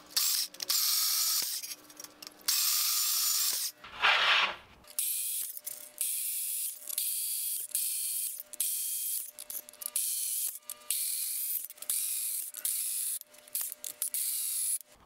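Portable band saw cutting through steel round bar, its blade rasping in repeated stretches that start and stop abruptly with short gaps between.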